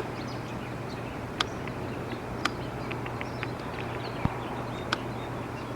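Rain falling steadily, an even hiss, with a handful of sharp ticks spaced about a second apart.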